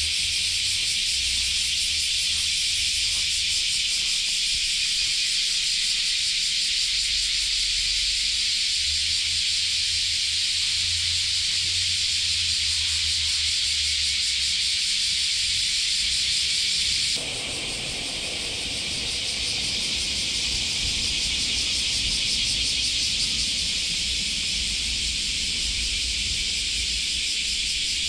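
Chorus of cicadas shrilling in the trees, a dense, steady, high buzzing that carries on throughout. About two-thirds of the way through it thins slightly and a lower background noise comes up under it.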